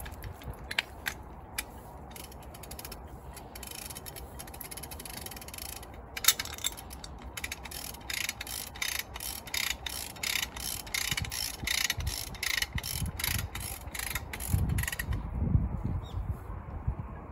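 A hand ratchet clicking as it is cranked. It starts about six seconds in and keeps an even pace of roughly three clicks a second until around fifteen seconds, then gives way to a few dull low knocks.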